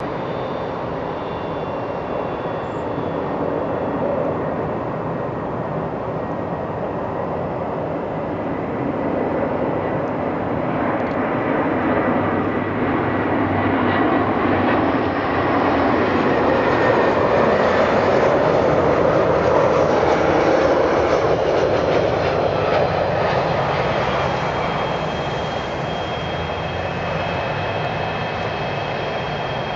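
Airbus A321-111 airliner on final approach to landing, the steady rumble of its CFM56 turbofan engines with a thin whine over it. It grows louder to a peak a little past the middle as the jet passes closest, then eases as it flares over the runway.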